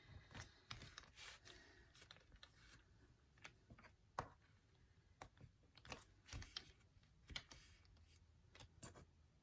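Faint, irregular clicks of plastic sewing clips being snapped onto a folded strap edge, with soft handling of the strap and clips on the cutting mat.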